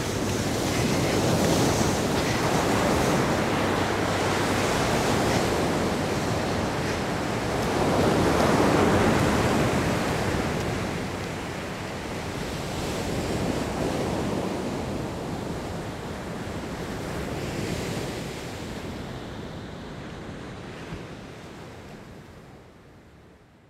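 Ocean surf breaking on a sandy beach, a steady wash that swells and ebbs every few seconds as waves come in, fading out near the end.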